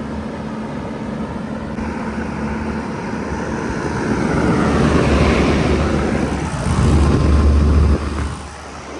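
Bard wall-hung heat pump running steadily in cooling mode, with a hum. From about two seconds in, a louder rushing sound swells over it and cuts off sharply about eight seconds in.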